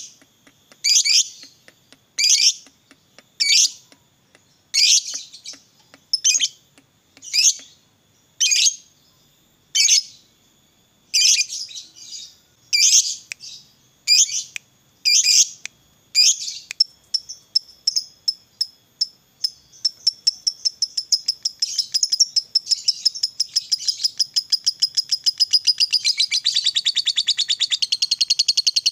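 Lovebird calling: shrill separate chirps about once a second for the first half, then speeding up into a long, rapid, unbroken chatter. This long chatter is the 'ngekek panjang' trill prized in fighter lovebirds.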